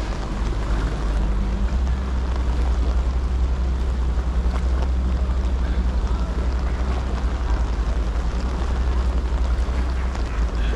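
Moored Sydney ferries' diesel engines idling: a steady low rumble with a faint hum, growing stronger about two seconds in, over a constant hiss of rain.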